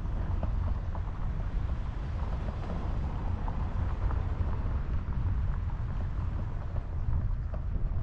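Steady low rumble of wind buffeting the microphone, with scattered light clicks.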